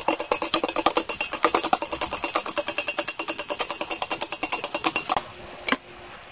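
Rapid, even clicking of a utensil beating a mixture against the side of a bowl, about ten strokes a second. It pauses about five seconds in, with one lone click, and starts again near the end.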